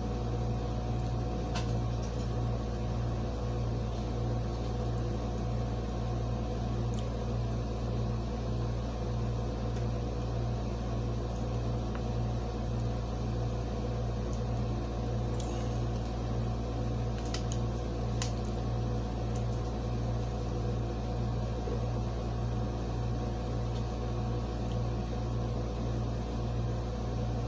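Window air conditioner running: a steady low hum with fan noise, and a few faint ticks.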